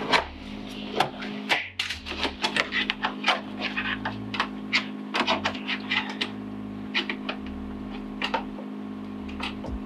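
Jeep Wrangler JK door panel being pried off with a plastic trim tool: a run of irregular plastic clicks, creaks and snaps as the Christmas tree push-pin clips are levered out, over a steady low hum.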